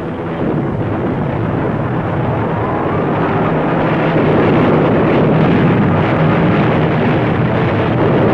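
A loud, steady engine roar that swells about four seconds in.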